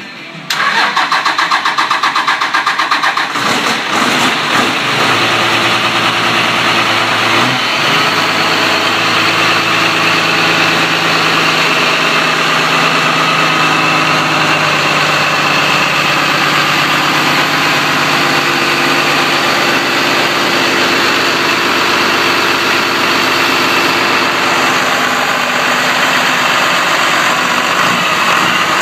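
Turbocharged car engine cranking on the starter for about three seconds, then catching and settling into a steady idle.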